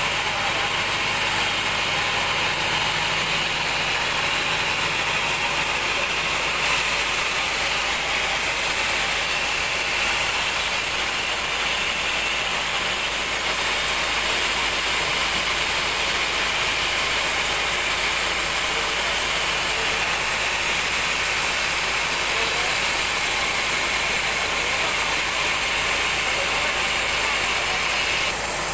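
A 36-inch band sawmill's blade cutting steadily lengthwise through a large mahogany log, a continuous high sawing noise over the running machine with no pauses.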